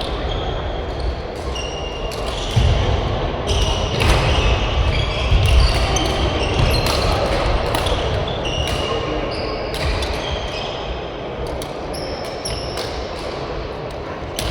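Badminton being played in a sports hall: many short, high squeaks of court shoes on the floor, with sharp racket strikes on the shuttlecock, over the low echoing noise of the hall.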